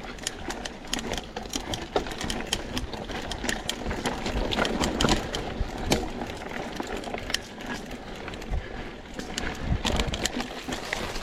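Mountain bike clattering over a rough trail: rapid, irregular clicks and rattles from the bike over low wind rumble.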